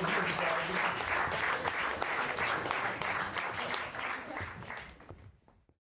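Audience applause, a dense patter of many hands clapping, thinning and dying away about five seconds in before the sound cuts off completely.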